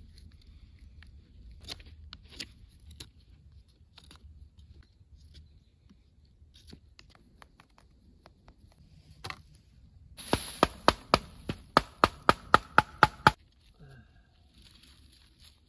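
A knife whittling a wooden spur, with occasional faint scrapes and clicks. Then, about ten seconds in, a quick run of about a dozen sharp knocks, about four a second, lasting some three seconds.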